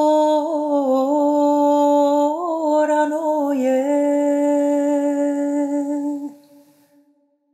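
A solo woman's voice, unaccompanied, singing a traditional Serbian lyric song in long held notes with small ornamental turns in pitch. It fades out a little over six seconds in.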